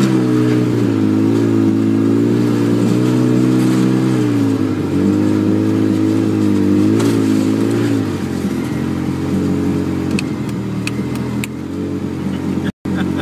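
Pickup truck engine heard from inside the cab, revs rising and falling under load as it climbs a steep rocky off-road hill; about eight seconds in the revs drop and settle lower and steadier, with a few clicks late on. The sound cuts out for an instant near the end.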